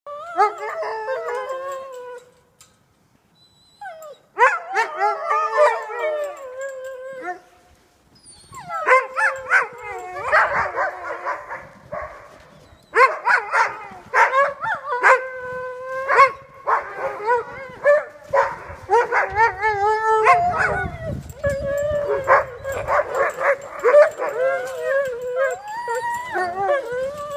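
Several husky-type dogs howling together in overlapping, wavering calls, mixed with short yips and barks. The chorus breaks off briefly twice in the first eight seconds, then runs on without a break.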